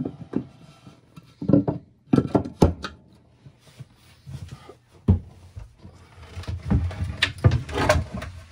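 Wooden cabin floorboards (bilge boards) being pried up and lifted out of the floor, giving a series of wooden knocks and thunks. The loudest come about two seconds in and again near the end.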